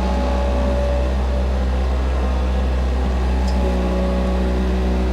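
Farm tractor engine running steadily at constant speed, a low, even hum.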